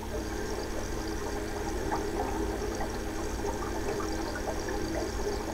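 Recorded water sound effect: water running and bubbling over a steady hum, with scattered small pops.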